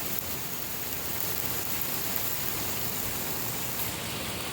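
Heavy hurricane rain falling steadily: an even, continuous hiss.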